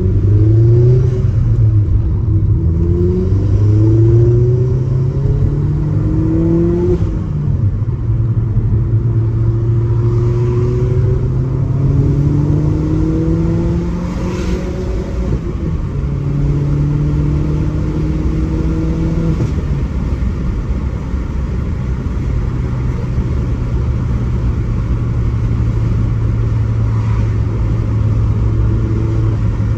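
Turbocharged four-cylinder engine of a Stage 3 tuned Vauxhall Astra VXR, heard from inside the cabin, accelerating through the gears. The pitch climbs and drops at each change several times, then holds steady at a cruise for the last ten seconds or so.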